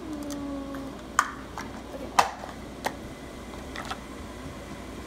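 A short hum that falls slightly in pitch, then four sharp clicks and knocks, the second the loudest, as cups and the phone are handled and set down on a kitchen counter.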